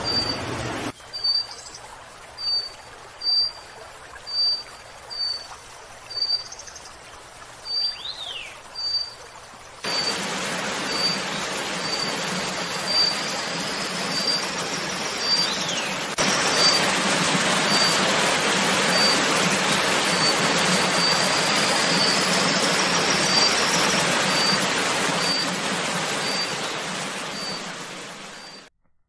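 A small bird repeating one short, high chip note a little more than once a second, with a couple of quick falling whistles. From about a third of the way in, a loud steady rushing noise lies under it, and everything cuts off just before the end.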